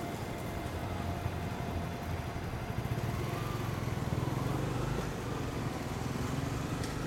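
Road traffic: motor vehicle engines running steadily.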